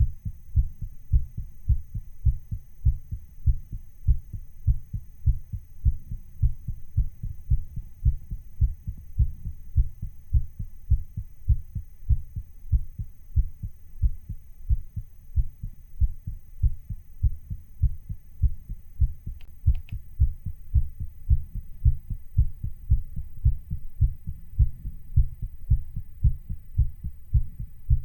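Human heartbeat recorded close up and sped up a little: a fast, even rhythm of low thumps.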